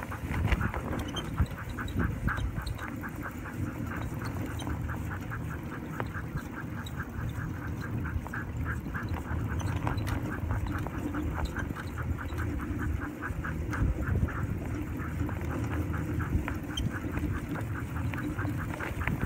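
Team of Siberian huskies panting quickly and rhythmically, several breaths a second, as they pull a wheeled training cart, over a steady low rumble from the cart rolling on the snowy trail.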